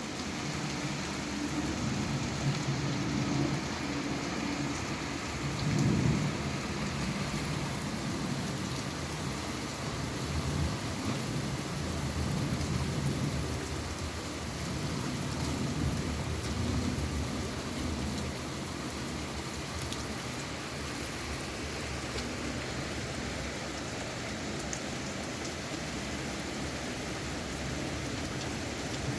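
Heavy rain falling steadily, with low rumbles that swell and fade several times in the first half, loudest about six seconds in.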